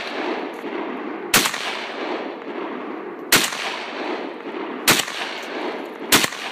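Russian SKS semi-automatic rifle firing 7.62×39mm, four sharp shots spaced one to two seconds apart, each followed by a long echo that fills the gap to the next.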